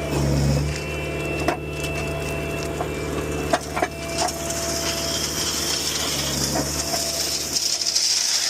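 Heavy road equipment with its diesel engine running steadily under a crunching, grinding rattle of loose stone being spread. The grinding grows louder about halfway through, with a few sharp knocks.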